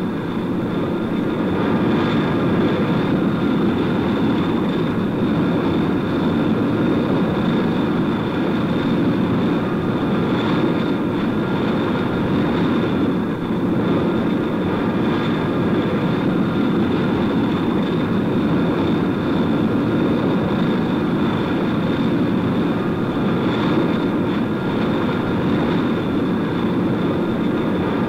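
Engines of an experimental vertical-takeoff flying platform running steadily: a loud, even rush with a steady high whine over it.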